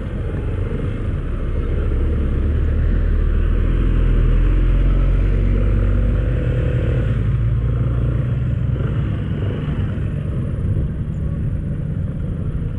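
Motorcycle engine running while riding, its low rumble rising and falling in pitch and swelling to its loudest a few seconds in, with a steady rushing noise over it.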